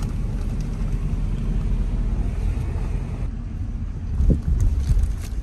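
Road noise inside a moving car's cabin: a steady low rumble of engine and tyres, with a few brief knocks near the end.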